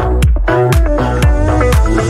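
Upbeat background dance music with a steady beat, about two drum hits a second.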